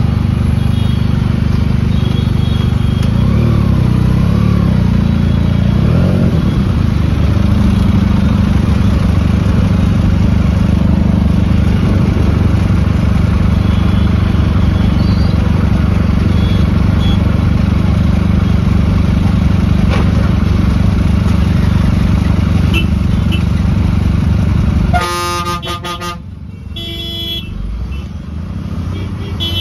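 Vehicle engines idling in a traffic jam: a steady low rumble that drops away suddenly near the end. A few vehicle horn honks follow in the last few seconds.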